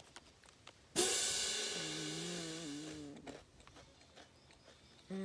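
A cymbal-crash sound effect with a held musical tone under it strikes suddenly about a second in and rings out for about two seconds. Around it are faint crunches of potato chips being chewed.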